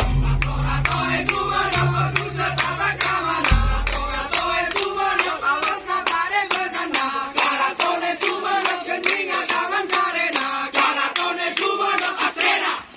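Madurese daul (tong-tong) ensemble playing: fast, steady percussion strokes under a bending melodic line. A low bass drone stops about three and a half seconds in, and the music breaks off abruptly near the end.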